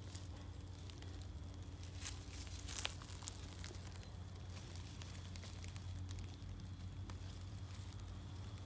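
Faint rustling of grass and leaves being brushed and handled at close range, with a few sharp crackles about two and three seconds in, over a steady low hum.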